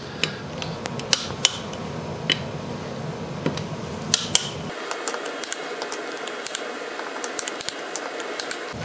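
Torque wrench and 17 mm socket tightening a tractor's front wheel lug nuts to 65: scattered sharp metallic clicks, coming more often in the second half.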